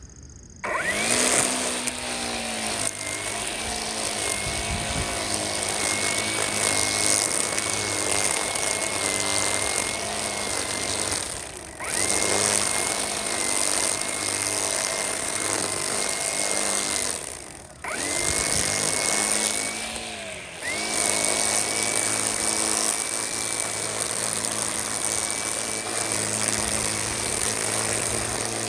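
EGO Power+ cordless string trimmer running, a steady high electric whine over the whir of the line cutting grass. It spins up about a second in, and the motor drops off and revs back up three times: near the middle, about two-thirds through and shortly after.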